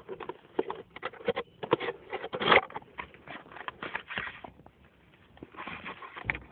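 Cardboard camera box and its inner packaging being handled and opened: irregular scraping, rustling and tapping, with the loudest scrape about two and a half seconds in. Recorded through a mobile phone's microphone.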